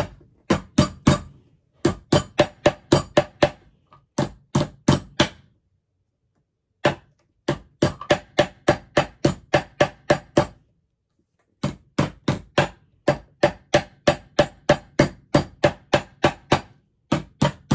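A hammer tapping a metal can's press-on lid shut, in quick runs of sharp strikes, about three or four a second, with short pauses between runs.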